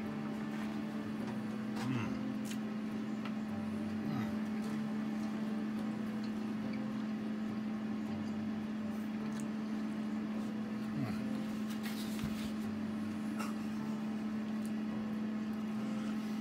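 Steady low hum from room equipment or an appliance, with a few faint taps and clicks as someone eats from a plate with a fork.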